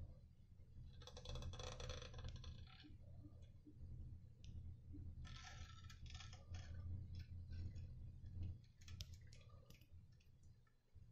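Faint handling noise: two stretches of rustling, one about a second in and one around five seconds in, with scattered small clicks and a low rumble underneath that drops away near the end.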